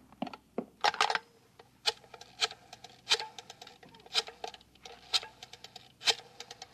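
Radio-drama sound effects of someone handling things: a string of sharp clicks and taps, coming in small clusters about once a second.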